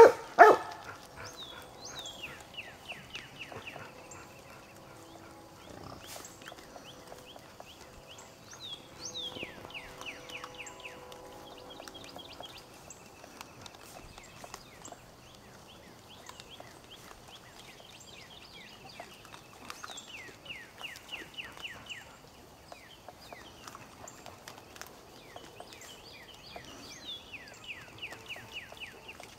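Wild boar and piglets feeding, with a short, loud squeal from the pigs right at the start. A bird's quick descending trill repeats four times in the background.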